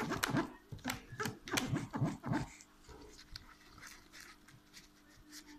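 A spoon stirring white PVA glue and colouring in a bowl, with repeated sharp clicks and scrapes against the bowl. During the first half, wordless vocal sounds from a person are heard over it, and the stirring continues more quietly after.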